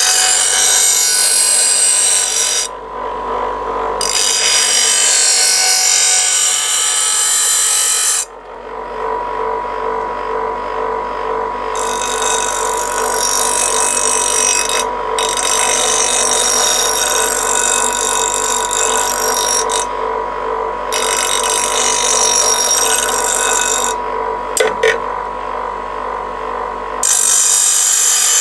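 Electric bench grinder running with a steady whine while a steel lawnmower blade is held against its stone, giving a loud hissing grind that breaks off briefly several times as the blade is lifted and set again. The dull blade is being sharpened along its factory bevel.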